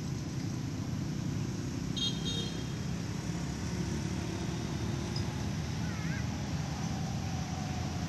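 Steady low outdoor rumble, with a brief high-pitched toot about two seconds in and a short wavering chirp about six seconds in.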